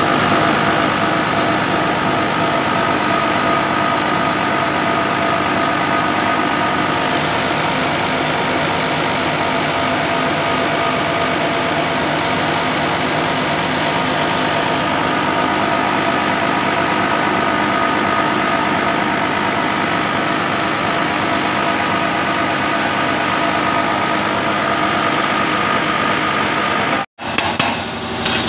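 Diesel fuel-injection pump test bench running a Bosch VE distributor pump at a steady speed, with the pump's injectors spraying diesel into the test glasses: a loud, even mechanical running noise with a steady whine. It breaks off briefly near the end, followed by a few knocks.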